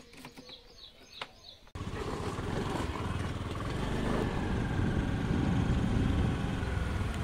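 Motor vehicle running: a loud, steady rumble of engine and road noise that starts abruptly about two seconds in, after a few faint clicks.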